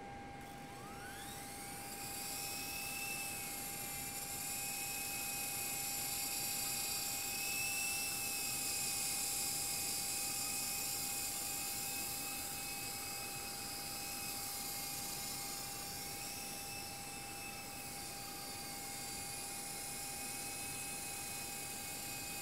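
Small electric radio-controlled helicopter (Twister 400 V2) spooling up with a rising whine over the first couple of seconds, then flying with a steady high motor-and-rotor whine that wavers up and down in pitch as the throttle changes.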